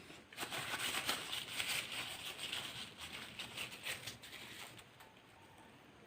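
Crinkling and rustling of a paper burger wrapper being handled, a dense crackle lasting about four and a half seconds that fades out near the end.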